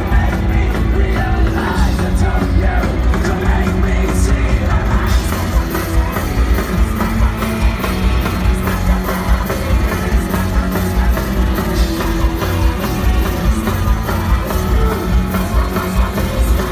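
Live industrial rock band playing loud through the PA, heard from the crowd: a heavy, bass-laden mix of guitars and keyboards with singing and a steady drum beat that comes through more plainly after about five seconds.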